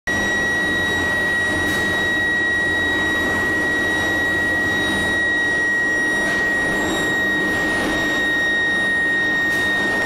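Steady industrial din of steel mill machinery at a reheating furnace's billet roller table, with a constant high whine running over a low hum.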